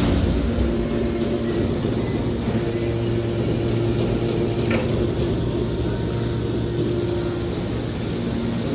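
Hydraulic metal baler running: a steady, even hum from its motor and pump, with one brief click about halfway through.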